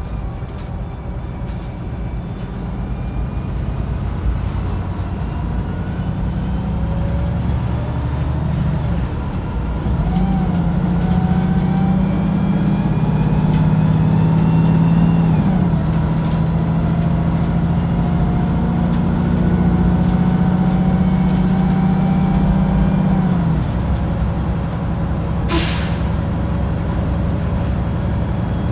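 Wright Pulsar 2 bus's diesel engine and automatic gearbox, heard from inside the passenger cabin, pulling hard. The whine rises and drops back at each gear change, then holds steady before the driver eases off. Near the end there is a short, sharp hiss of air.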